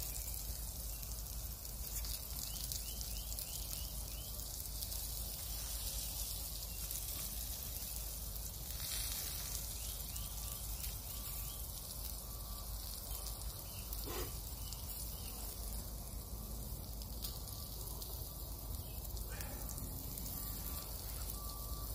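Hot dog sausages sizzling in a frying pan over campfire embers: a steady frying hiss, with a few faint pops.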